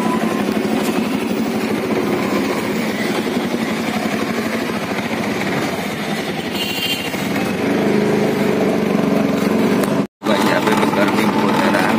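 Auto-rickshaw engine running while riding, heard from inside the open cabin as a steady rattling drone. A horn sounds briefly about seven seconds in. The sound cuts out for an instant about ten seconds in.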